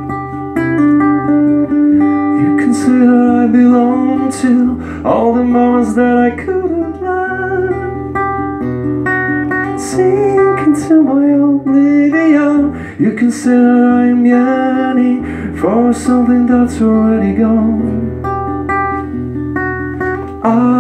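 Two-guitar acoustic duo: a strummed acoustic guitar with chords changing every couple of seconds, under a second guitar playing a lead melody with bending, sliding notes, and wordless singing at times.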